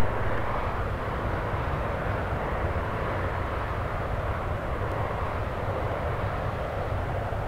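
Jet airliner noise from a Boeing 767 on final approach: a steady, even rush with a low hum beneath.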